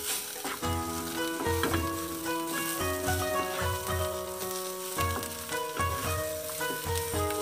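Pork and vegetables sizzling in a hot frying pan as they are stirred with a spatula, over background music with a steady beat.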